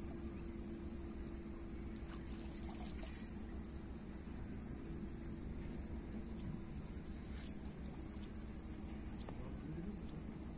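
Steady high-pitched insect chorus over a faint low hum, with a few short, falling high chirps in the second half.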